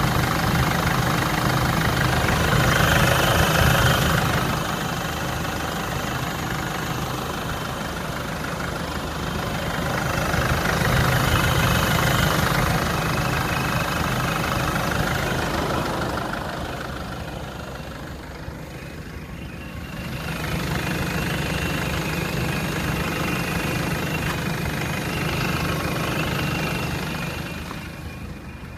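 Jeep Liberty CRD's 2.8-litre four-cylinder turbodiesel running and being revved up and settling back three times. A high whine comes in with each rise in revs.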